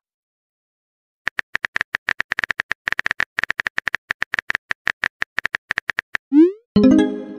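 Texting-app typing sound effect: after about a second of silence, a rapid run of small keyboard-like clicks for about five seconds. It ends with a short rising pop, and a pitched musical tone starts near the end.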